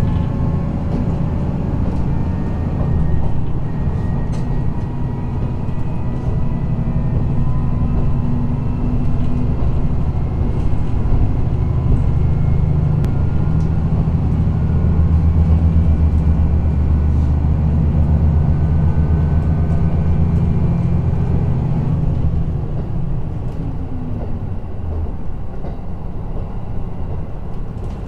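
Inside a KiHa 54 diesel railcar underway: the diesel engine's steady low drone mixed with the rumble of the wheels on the rails, easing off a little about 22 seconds in.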